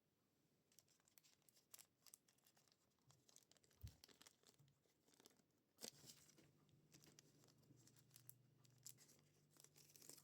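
Faint handling of packaging: scattered rustling, tearing and small clicks, with a soft knock about four seconds in and another about six seconds in.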